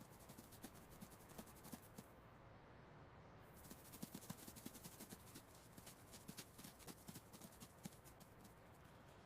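Faint, rapid, irregular light clicks and scratches, several a second, like a mouse's small feet scurrying, a little busier about halfway through.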